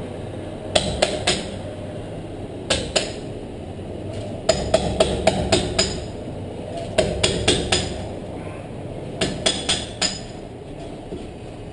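Hammer driving a chisel into brick to deepen a channel cut in a masonry wall, in bursts of quick sharp blows with short pauses between them.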